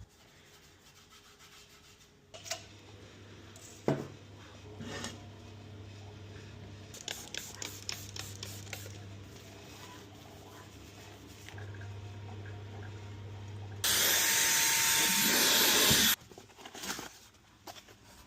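Workshop handling noises: scattered clicks and knocks over a low steady hum, then a loud, even hiss lasting about two seconds near the end.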